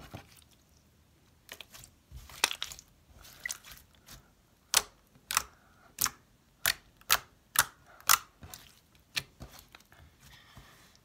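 Butter slime being kneaded and pressed by hand, giving a string of sharp, irregular pops and clicks as trapped air is squeezed out.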